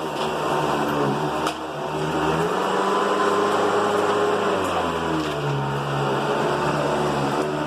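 Hoover Decade 80 upright vacuum cleaner running on its high, shag pile-height setting, the motor's pitch shifting a little midway as it is worked. There is a short click just after the start and another about a second and a half in.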